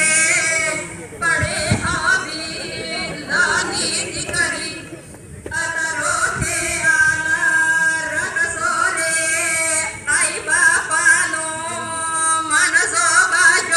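A woman singing a Bhili-language song in long held notes that waver up and down, phrase after phrase, with a brief break about five seconds in.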